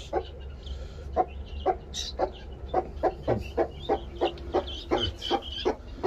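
Broody hen clucking in a steady series of short clucks, about two to three a second: the calling cluck that a mother hen uses to keep her brood, here guinea fowl keets, close to her.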